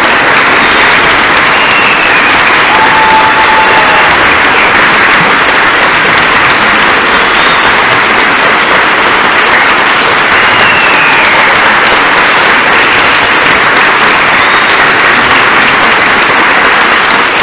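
A church congregation applauding steadily and loudly.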